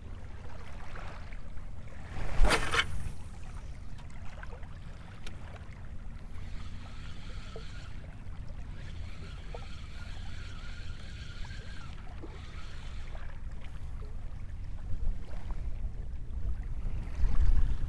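Wind rumbling on the microphone over choppy water, with one loud, sudden noise about two and a half seconds in. A faint, steady whine with overtones is heard in the middle for about six seconds.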